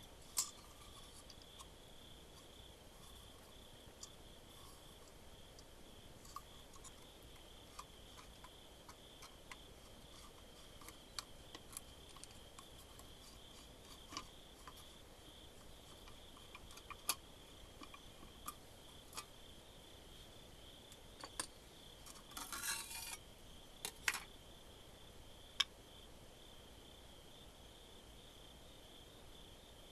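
Quiet, scattered small clicks and light metallic ticks from handling the parts of a disassembled vintage multimeter, with a short cluster of rustling clicks near the end. A faint steady high-pitched drone sits underneath.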